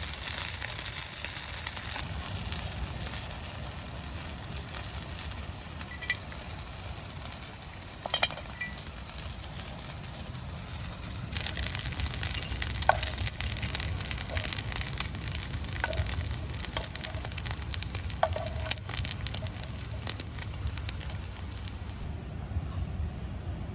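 Food sizzling and crackling as it fries, a steady hiss with many small pops that grows busier about halfway through; the high hiss drops away abruptly near the end.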